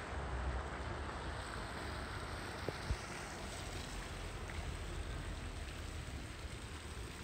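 Snowstorm wind buffeting a phone's microphone: a steady rushing noise with a heavy low rumble. Two short knocks come about three seconds in.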